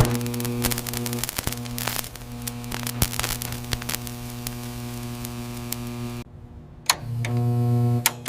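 Steady low hum with crackling clicks scattered through it, cutting out for about half a second near the end and then resuming.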